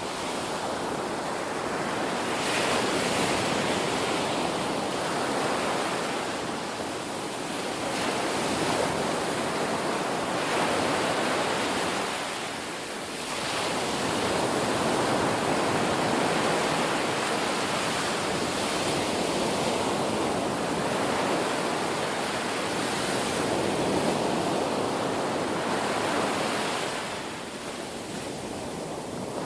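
Ocean surf: waves breaking and washing up in a continuous rushing hiss that swells and ebbs every several seconds.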